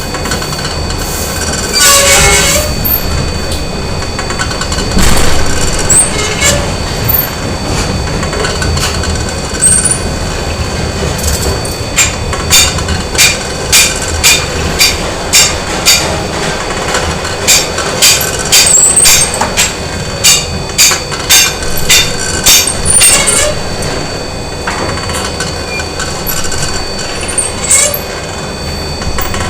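Factory machinery runs steadily with a constant hum and a few high steady tones. A louder rushing burst comes about two seconds in and another about five seconds in. Later a run of sharp knocks comes at about one and a half a second for around ten seconds.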